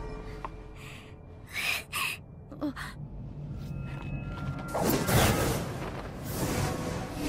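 Anime soundtrack: quiet background music with two short sound-effect bursts about two seconds in. Whooshing swells of noise follow in the second half.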